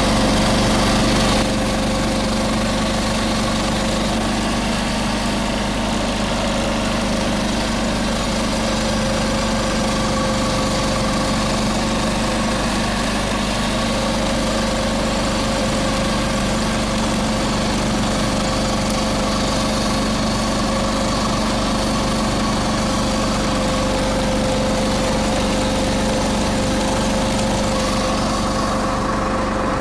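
John Deere 214 garden tractor's single-cylinder Kohler engine running at a steady speed, driving a 37A snow blower attachment that is throwing snow. The engine note holds even throughout.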